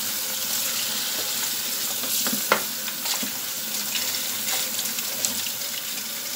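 Kitchen tap running steadily as long green peppers are rinsed by hand in a plastic colander in a steel sink, water splashing over them, with one sharp knock about two and a half seconds in.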